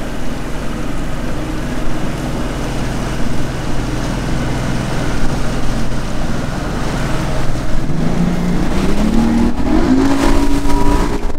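Mercury OptiMax Pro XS two-stroke outboard motor running as the boat moves under way. About eight seconds in it rises in pitch as it speeds up.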